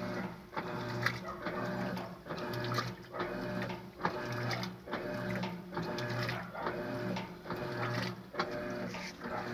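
Electrolux LES11 11 kg washing machine agitating a load: the drive motor whirs in short strokes that switch direction at an even beat, with clicks and swishing of water and cloth between strokes.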